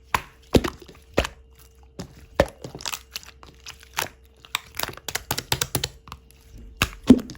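Close-up sharp cracks and clicks at irregular intervals, with softer crinkling ticks between; the loudest is a double crack near the end.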